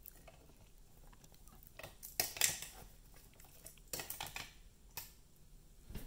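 Short bursts of clicking and clattering, like small hard objects knocking together, about two seconds in and again around four seconds, with a single click near five seconds.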